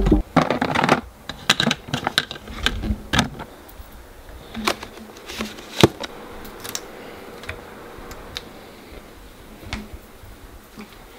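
Irregular clicks and light knocks of things being handled: a quick cluster in the first few seconds, then scattered clicks, with one sharper knock about six seconds in.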